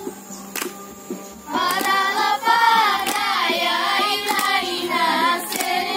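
Girls singing a folk song together to hand clapping. A held sung note and a few claps come first, then about a second and a half in the group's voices come in loudly.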